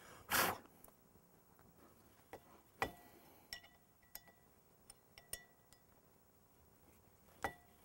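Scattered light metallic clinks and taps, several ringing briefly, as tools and teeth knock against the steel cutter wheel of a stump grinder while its teeth are fitted. A short rush of noise comes just after the start.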